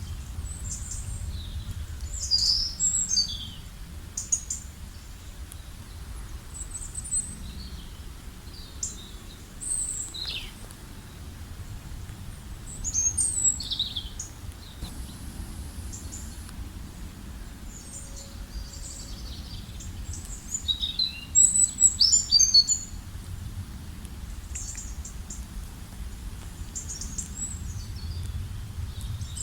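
Several wild birds calling and singing in short, high chirps and quick descending notes, with a louder flurry of chirps about two-thirds of the way through, over a steady low background rumble.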